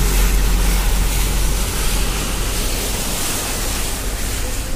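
Steady, loud rushing noise of wind and road noise from a moving vehicle, with a low rumble that fades out about two and a half seconds in.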